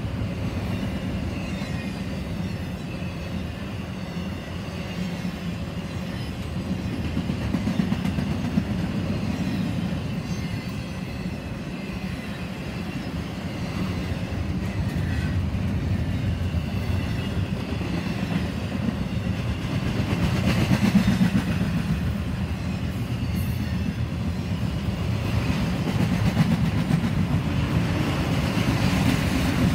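Double-stack container well cars of a freight train rolling past on the rails: a steady low rumble of wheels on track that swells and eases several times.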